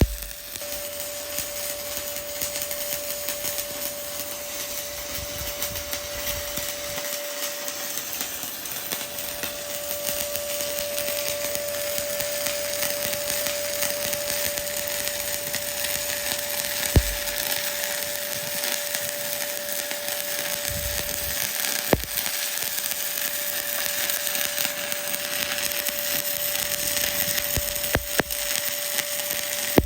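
Stick (SMAW) welding arc crackling and hissing steadily as an electrode runs a bead on steel plate, with a steady whine underneath and a few sharp spatter pops, one about halfway through and more near the end.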